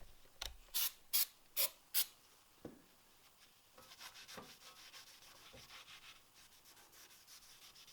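Five short hissing sprays of brake cleaner from an aerosol can in quick succession, followed by a quieter, steady rubbing and scrubbing.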